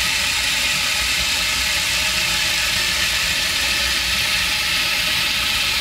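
Battery-powered Power Trains toy train running on its plastic track, its small motor and gears giving a steady, unbroken mechanical whir as it pulls a line of Thomas MINIS.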